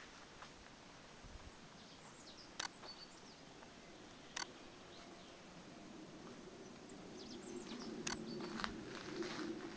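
Quiet outdoor ambience with faint, brief bird chirps and a few sharp clicks, and a low murmur that grows louder over the second half.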